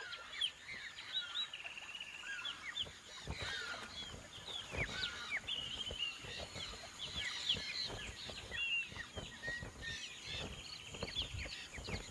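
Dense chorus of many birds chirping and whistling in short rising and falling notes, with a few rapid trills, over a steady high hiss of wetland ambience. Occasional soft low thumps are scattered through it.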